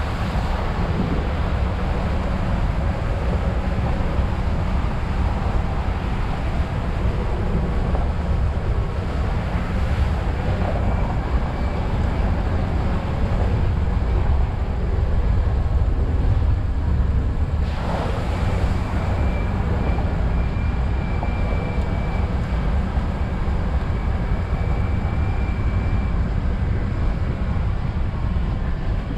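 Steady rumble of a truck driving along a wet dirt trail, with wind noise on the microphone.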